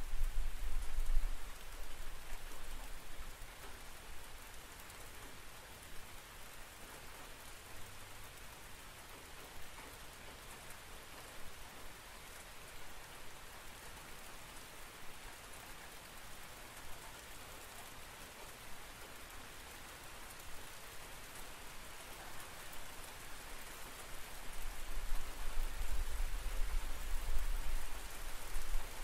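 Steady rain falling. A low rumble of thunder dies away in the first couple of seconds, and another builds up and runs on near the end.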